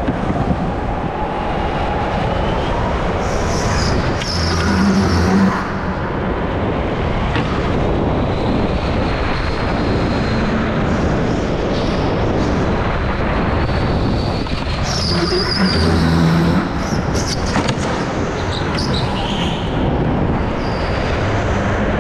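Go-kart driven at speed around an indoor track, heard from the driver's seat: a steady, loud rumble of the kart with noise on the microphone and a faint higher whine that rises and falls.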